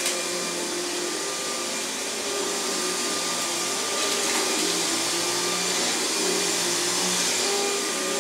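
Upright vacuum cleaner running steadily as it is pushed over carpet, a constant motor hum and whine.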